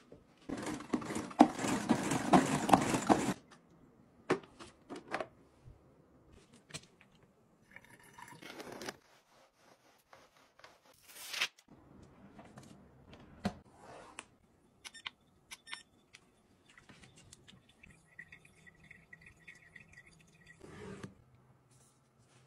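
Handling noises of household gadgets being used: a loud rough noise lasting about three seconds near the start, then scattered clicks, taps and brief rustles.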